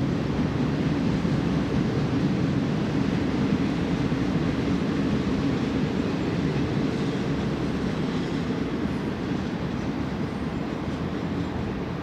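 BNSF freight train's flatcars rolling across a rail overpass: a steady low rumble of wheels on rail, easing slightly toward the end.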